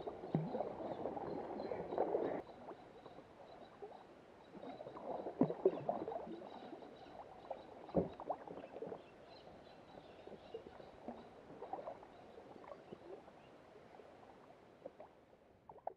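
Water splashing and gurgling against a kayak, with scattered knocks and splashes; louder for the first couple of seconds, with a brief louder patch about five seconds in and a sharp knock about eight seconds in.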